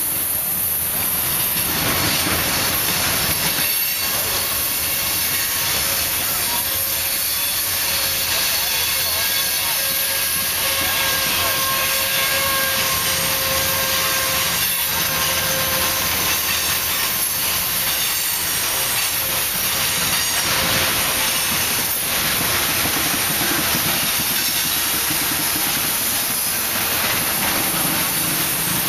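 Loaded coal hopper cars of a long freight train rolling past close by, giving a steady rumble and hiss of wheels on rail. A faint steady ringing tone sounds through the middle.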